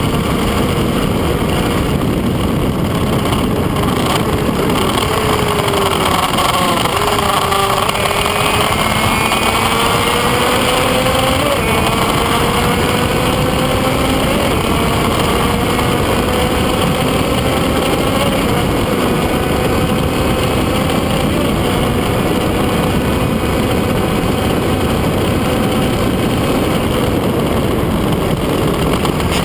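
Onboard sound of a Kreidler Van Veen 50 cc two-stroke racing motorcycle at speed: heavy wind rush over the microphone, with the engine note climbing slowly and dipping once about seven seconds in.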